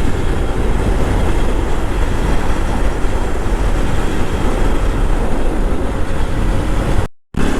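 Steady rush of wind and road noise with the motorcycle running underneath, heard while riding. The sound cuts out completely for a moment about seven seconds in.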